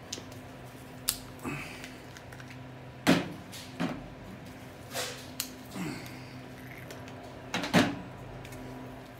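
Plastic Chubby Gorilla dropper bottles and their caps being handled and set down on a tray: about ten irregular clacks, the loudest about three seconds in and near the end, over a steady low hum.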